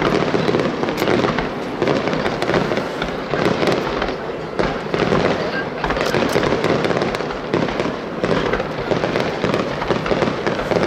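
Aerial fireworks display: shells bursting one after another with dense crackling, the bangs and crackles overlapping without a pause.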